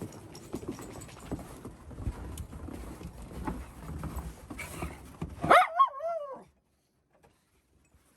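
Irregular tapping and scuffling, then a miniature schnauzer's wavering, pitched yowl about five and a half seconds in, lasting about a second.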